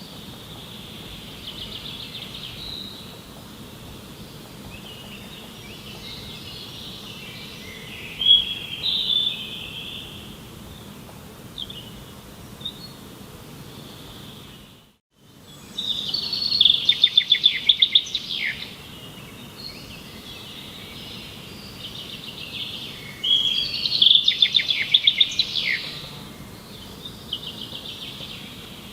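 Songbirds singing, with repeated chirps and quick trilled phrases over steady outdoor background noise. There is a brief break about halfway through, and the song is louder and busier after it.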